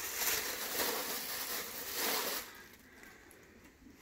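Clear plastic bag crinkling and rustling as it is pulled off a new air rifle, stopping about two and a half seconds in.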